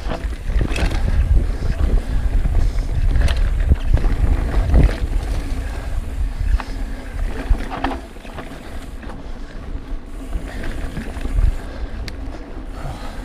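Ibis Mojo HDR 650 mountain bike rolling fast down a dirt trail: deep wind buffeting on the chest-mounted action camera's microphone and tyre rumble, with scattered sharp knocks and clicks from the bike over bumps. It gets quieter about eight seconds in.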